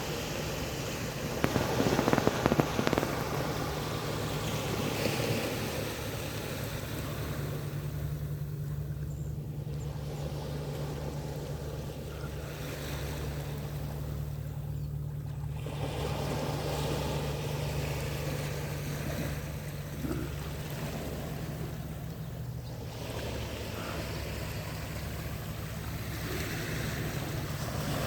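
Sea waves washing in and pulling back, the rush easing off about every six to seven seconds, over a steady low hum. A few brief crackles come about two seconds in.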